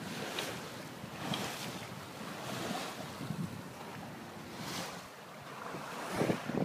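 Water rushing and splashing along the hull of a small sailboat under way through choppy sea, with wind buffeting the microphone. The sound swells and fades in soft rushes and grows louder near the end.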